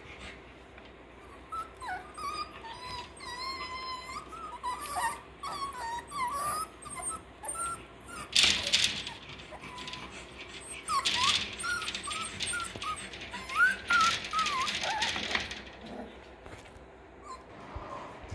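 Six-week-old Russell Terrier puppies whining and squealing at play, in many short high-pitched squeaks that bend up and down. A few louder scuffling bursts break in around the middle.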